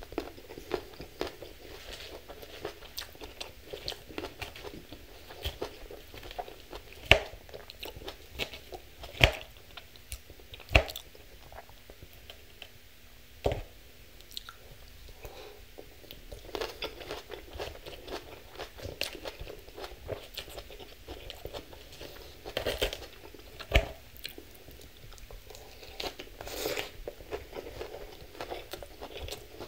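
Close-miked crunching and chewing of a large salad of crisp lettuce and crunchy toppings, eaten mouthful after mouthful. Several sharp clicks stand out, the loudest in the first half, from the metal fork striking the platter.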